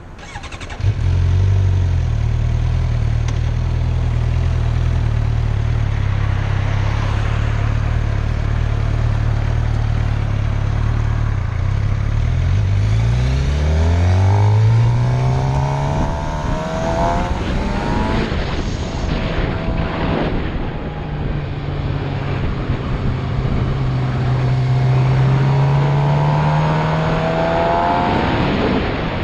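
A motor vehicle's engine starts about a second in and runs steadily, then its pitch rises as it accelerates around the middle, eases off, and rises again near the end. Heavy wind noise on the action camera's microphone runs under it all.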